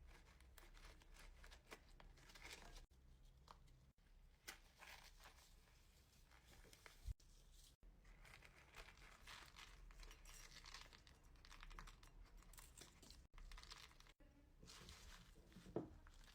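Faint crinkling and crackling handling noise: a run of small rustles and clicks, broken by several abrupt cuts, with one louder knock about seven seconds in.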